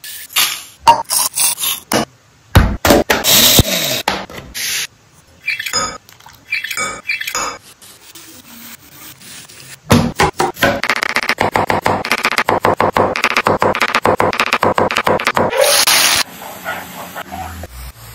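Kitchen sounds cut together. First a wooden spatula scrapes and clinks through whole spices in a steel pan. From about halfway, a fast run of knife strokes cuts an onion on a cutting board for several seconds.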